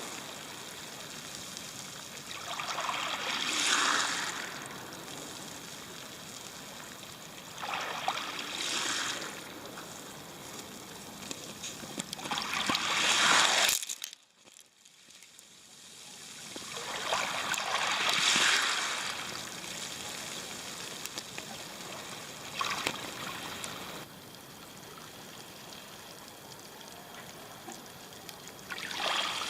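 Waves of the Sea of Japan breaking and washing back over a pebble beach, surging about every four to five seconds with a hissing, trickling wash between surges. About halfway through the sound cuts off suddenly for a couple of seconds before the surf builds again.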